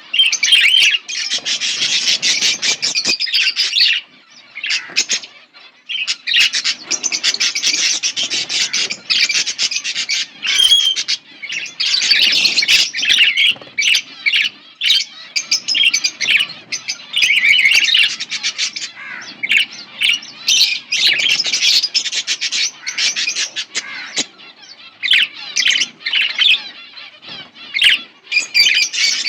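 Budgerigars chirping and chattering in long, rapid bouts with short pauses, some squawks mixed in.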